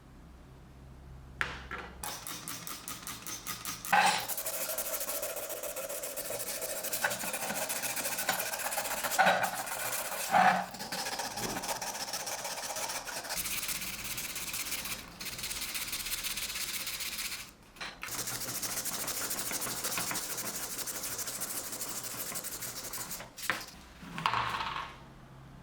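Abrasive rubbing and rasping on a workpiece, as in hand sanding or filing, in several short stretches that cut off and restart abruptly.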